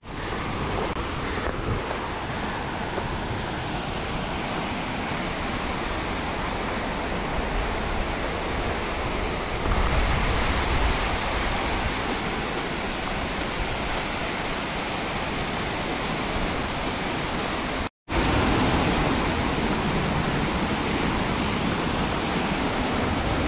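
Steady rush of a waterfall and whitewater mountain stream. The sound is louder and deeper for a few seconds about ten seconds in, and cuts out for a moment about eighteen seconds in.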